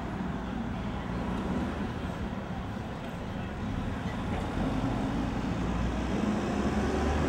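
City street traffic noise with a low rumble that grows louder through the second half as an electric streetcar approaches on its rails.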